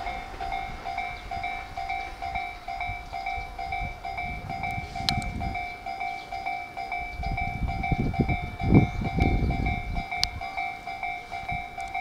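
Japanese level-crossing warning bell ringing in an even, repeating two-tone clang, over the low rumble of a passing train that swells twice, loudest about three quarters of the way through.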